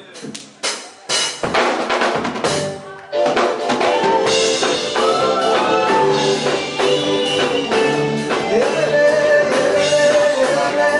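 A live band starting up: a few separate drum-kit hits, then about three seconds in the full band comes in, drums and keyboard playing together with a steady beat and a moving melody.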